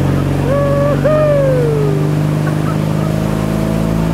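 Tow boat's engine running at a steady pitch under load, with the rush of water spray from a barefoot water skier landing and being pulled along. About half a second in, a short two-part whoop rises over it, the second part falling in pitch.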